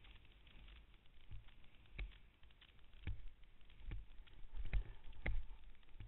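Wind rumbling on a helmet camera's microphone as a snowboard runs over snow, with about five sharp knocks from the board bumping and scraping, the loudest near the end.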